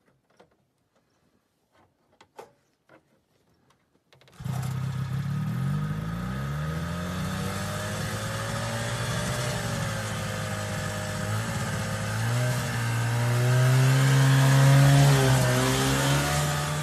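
Vintage John Deere snowmobile's two-stroke engine starting after a few faint clicks. It catches suddenly about four seconds in, runs with a wavering pitch, then revs up near the end.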